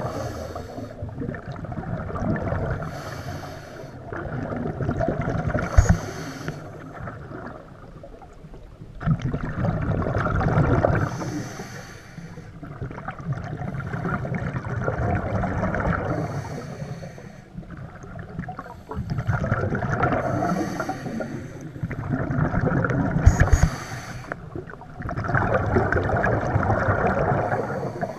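A scuba diver breathing through a demand regulator underwater, heard from the diver's own camera. Short hissing inhales alternate with longer bubbling exhales, about seven breaths. Two sharp knocks are heard, about six seconds in and again near the end.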